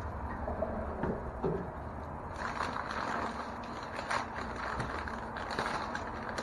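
Packing paper crinkling and rustling as it is unwrapped by hand, growing busier about two seconds in.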